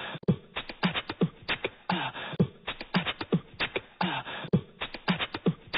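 Intro music: a steady, fast percussive beat of low kick-like thumps and sharp clicks, in a beatbox style.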